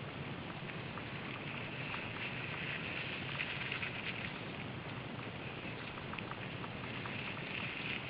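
Mountain bike rolling along a dirt forest trail: a steady rushing noise of tyres on the ground, with many small crackles and clicks.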